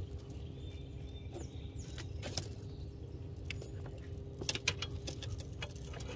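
Fishing tackle being rummaged through in search of a swimbait: scattered clicks, knocks and rattles, thickest around two and a half and four and a half seconds in, over a faint steady hum and low rumble.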